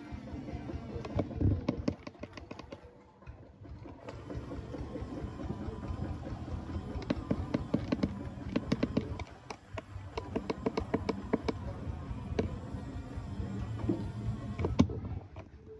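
Small electric motors and gearboxes of RC construction models running, easing off and starting again twice, with many sharp clicks and rattles over a steady low hum.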